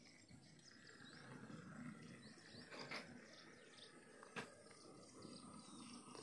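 Near silence: faint background noise with two soft clicks, about three seconds and four and a half seconds in.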